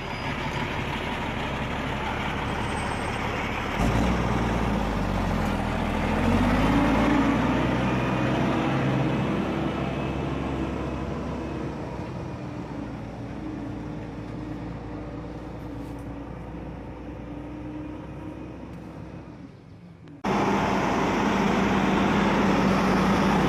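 Heavy log truck's diesel engine running under load, picking up sharply about four seconds in and revving up, then settling and slowly fading; near the end it cuts abruptly to another truck engine running louder and steady.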